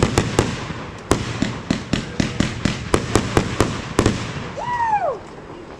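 A rapid string of firecracker bangs, several sharp cracks a second, thinning out about four seconds in. Near the end a short tone rises briefly and then falls away.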